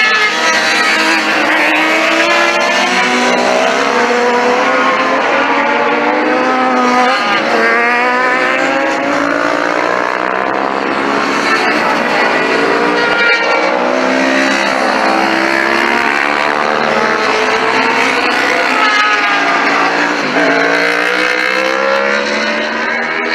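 Several sport motorcycles being ridden hard on a race track, one after another with no gap. Their engines rise in pitch under full throttle and drop back at each gear change.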